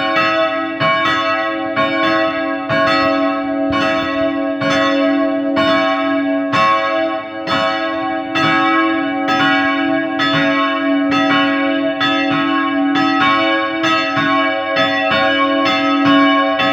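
Church bells ringing together in a full peal: the strikes come at about two to three a second and overlap, each one ringing on into the next with no pause.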